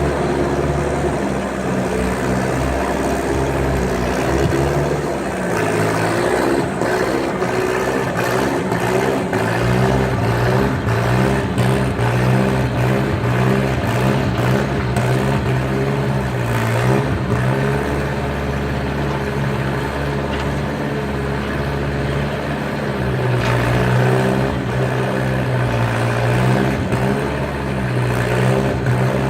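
Skid steer engine running under load, its pitch rising and falling several times as the machine works, with scattered knocks and clatter.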